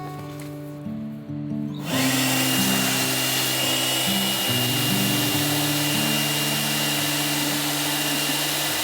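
A small electric motor, like a power tool's, starts about two seconds in and runs steadily with a whooshing hiss and a thin high whine, over background music.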